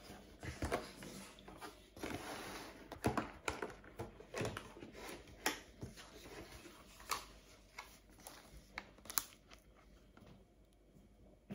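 Plastic takeaway sushi container handled on a desk, its clear plastic lid crackling and clicking as it is pulled off the tray: a string of irregular sharp clicks and short crinkles.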